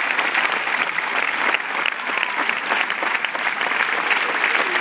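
Crowd applauding steadily, a dense, continuous clapping.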